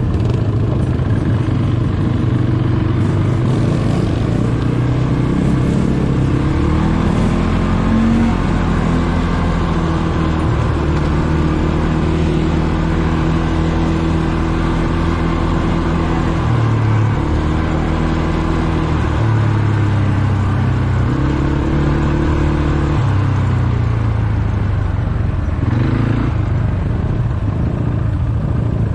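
ATV engine running while riding, its pitch stepping up and down repeatedly as the throttle and speed change.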